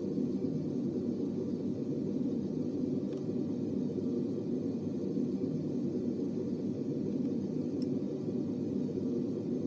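Steady low rumbling background noise, even throughout, with a couple of faint ticks about three and eight seconds in.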